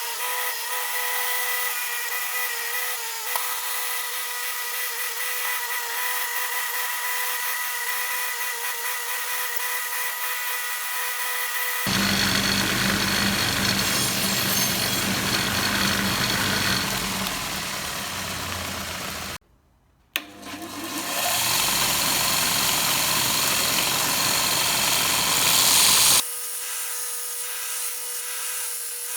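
A power tool runs steadily with a high whine. About twelve seconds in it changes to a louder, rougher grinding noise. The sound drops out briefly around twenty seconds, and the first steady whine comes back near the end.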